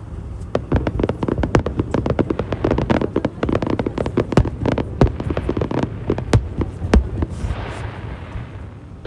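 Aerial fireworks going off: a dense, fast run of sharp cracks and bangs, thinning to a few louder single bangs near the end.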